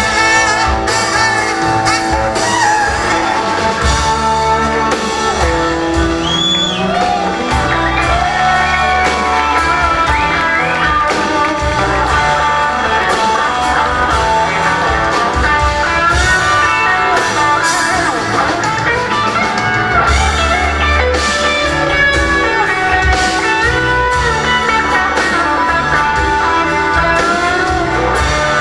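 Live blues band playing an instrumental passage: acoustic and electric guitars with bass guitar and drums keeping a steady beat.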